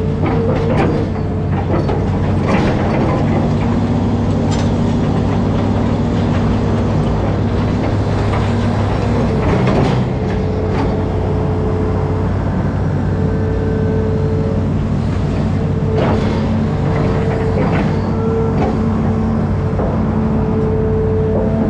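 Amphibious excavator's diesel engine running steadily, with a higher tone that comes and goes and scattered knocks and clanks as it works.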